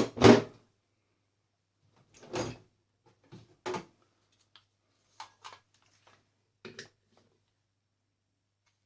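Rummaging among tools and parts: a loud knock at the start, then a few thuds and lighter clicks over the next several seconds.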